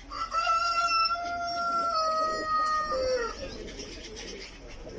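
A rooster crowing once: one long crow of about three seconds, held on a steady pitch and dropping off at the end.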